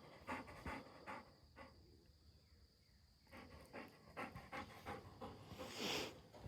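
A dog panting faintly in quick, uneven breaths, pausing for about a second and a half in the middle, with a louder breath near the end.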